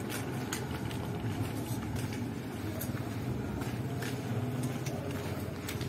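Footsteps on a paved street at about two steps a second, over a steady low hum.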